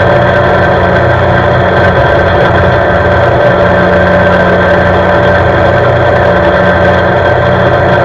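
CFMoto C-Force 520 ATV's single-cylinder four-stroke engine running steadily as the ATV cruises along an asphalt road at an even speed.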